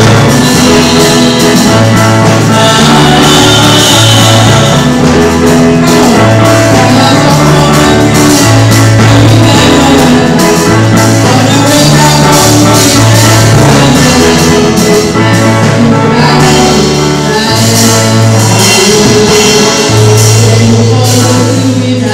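Loud live church music: a band with drum kit, bass and guitar playing, with singing.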